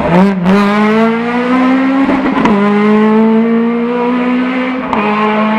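Race car engine under hard acceleration on a hillclimb course: its note climbs for about two seconds, breaks sharply at a gear change, then holds nearly steady, with another short break near the end.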